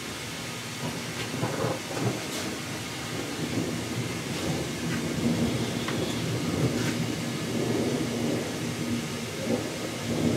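Heavy summer thunderstorm: steady rain with a low, rolling rumble of thunder that swells from about halfway through, and a few sharp ticks scattered across it.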